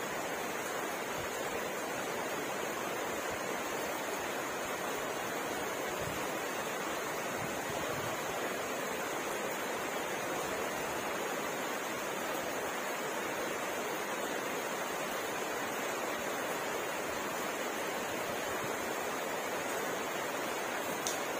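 Steady rainfall, a continuous even hiss.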